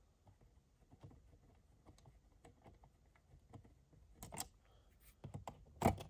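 Screwdriver backing out the centre screw of a plastic outlet cover plate, a run of faint small clicks, then a few louder clicks near the end as the plate is pulled off the wall.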